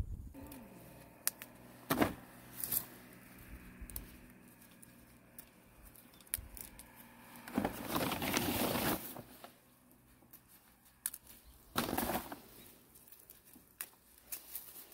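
Rustling and crinkling in a few short bursts, the longest about halfway through, as freshly cut lacquer tree shoots are handled and gathered. A faint steady hum runs underneath.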